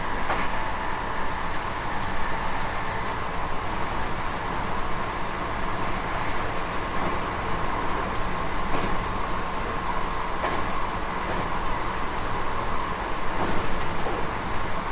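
JR West 221 series electric train running, heard from on board: steady rolling noise with a steady whine and a few faint clicks.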